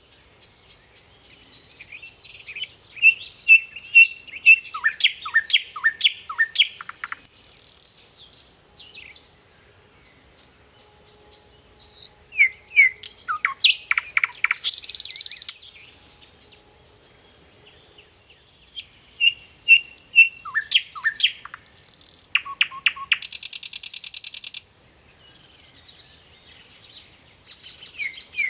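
A songbird singing in repeated bouts a few seconds apart. Each bout is a run of clear whistled notes and quick falling slurs with rapid clicks, and ends in a harsh buzzy rasp.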